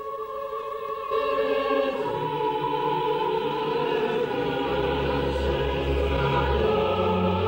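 Choral music with long held notes, swelling as more voices join about a second in and a deep low part enters about halfway through.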